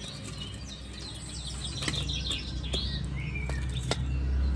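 Small birds chirping again and again, with a few sharp metal clinks as the curry is tipped from the pan into a steel bowl, over a low rumble that grows louder near the end.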